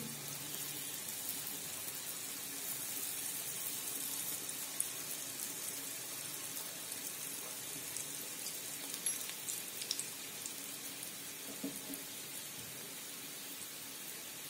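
Semolina gulab jamun deep-frying in hot ghee in a steel kadai on a low flame: a steady sizzle with small crackles, and a few light ticks in the second half.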